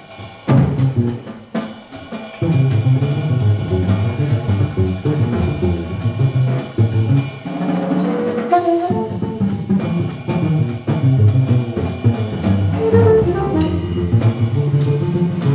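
Live jazz drum kit and plucked double bass playing medium swing, the drums busy with cymbal and drum hits over the bass line.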